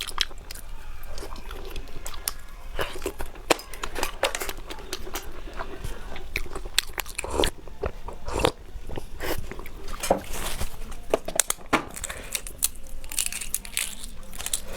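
Close-up eating: a person biting and chewing food, with a run of irregular crisp crunches and wet mouth clicks.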